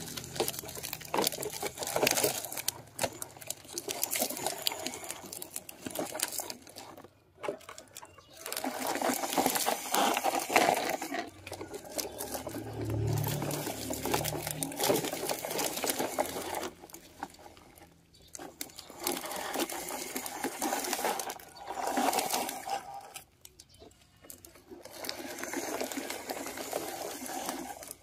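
Plastic toy dump truck pushed by hand along a rubber strip over gravel, its wheels rattling and scraping. The sound comes in several stretches of a few seconds each, with short pauses between.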